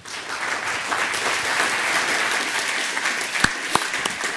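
Audience applauding: dense, steady clapping from many hands, with a few sharper single claps standing out about three and a half seconds in.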